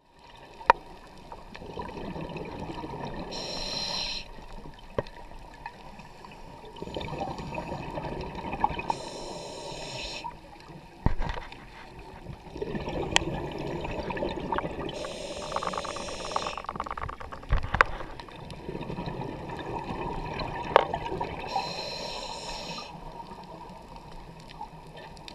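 Scuba diver breathing through a regulator underwater: a rush of exhaled bubbles about every six seconds, with a lower rushing sound between them. A few sharp clicks stand out.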